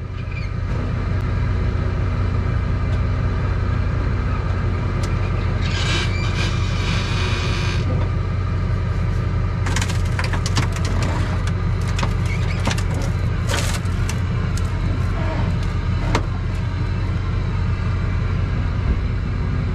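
Vehicle engine and road noise while driving, a steady low drone. A brief hiss comes about six seconds in, and scattered clicks and rattles follow later.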